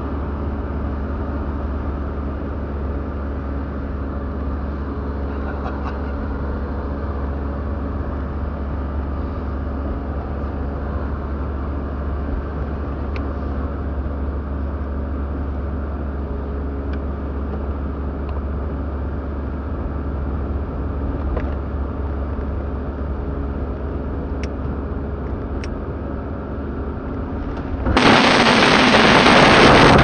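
A car's engine and road noise heard from inside the cabin while it drives down a mountain road, a steady low rumble. About two seconds before the end a sudden loud crashing and scraping starts as the two left wheels drop off the road edge and the car lurches into the verge.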